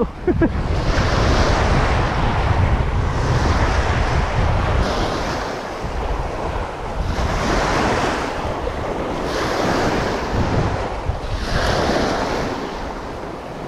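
Small sea waves breaking and washing over a rocky shore, surging every couple of seconds, with wind buffeting the microphone.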